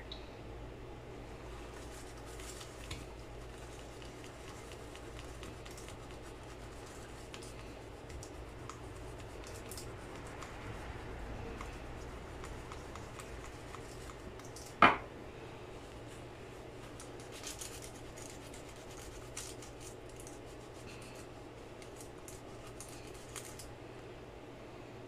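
Faint scrubbing and light clicks of flux being cleaned off a laptop motherboard's chip pads, over a steady low hum. One sharp click just past halfway through.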